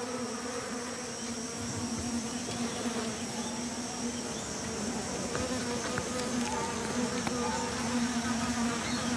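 Stingless bees buzzing at their opened wooden nest box: a steady, slightly wavering hum.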